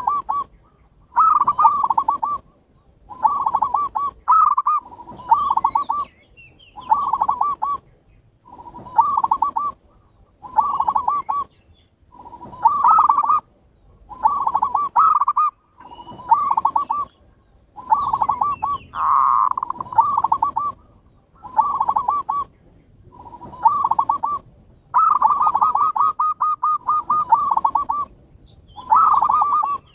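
Zebra doves (perkutut) cooing: phrases of trilled coos repeating about every two seconds, one phrase near the end drawn out longer than the rest.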